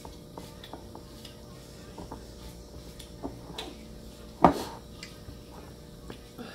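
Eating sounds at a table: small clicks and taps of fingers working food in ceramic bowls, with one louder knock about four and a half seconds in.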